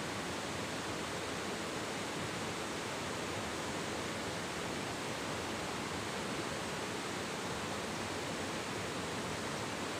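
River water rushing steadily over rocks and small rapids, an even unbroken noise.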